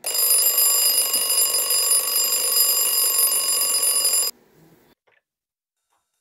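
Bell alarm clock ringing loudly and continuously for about four seconds, then cut off suddenly.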